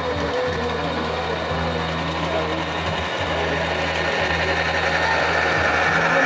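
Model freight train running past on metal track: a steady low motor hum under the whir and clicking of small metal wheels on the rails, growing louder near the end as the cars pass close.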